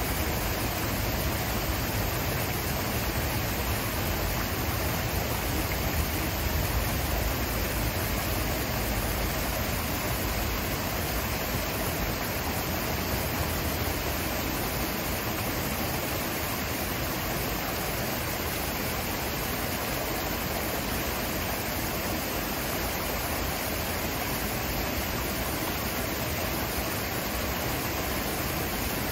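Water from a small rockwork fountain cascade pouring steadily into a pool: an even, unbroken rush of falling water.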